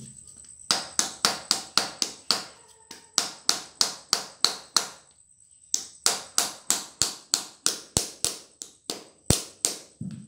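Hammer striking the steel pliers in quick, even blows, about three a second, in two runs broken by a short pause about five seconds in.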